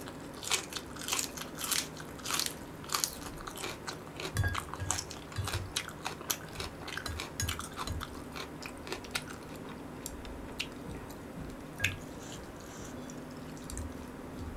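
Mouth chewing raw green onion: crisp crunching bites, several a second for the first eight seconds or so, then fewer and quieter chewing sounds.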